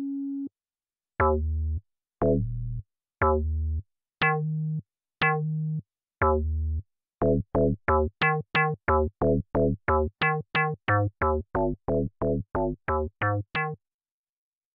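Siberia 2 FM software synth playing its 'BS - Top Notch' bass preset: single plucky notes about once a second, each with a bright attack that dulls quickly. About seven seconds in, the arpeggiator takes over with a fast run of repeated notes, about three a second, which stops shortly before the end.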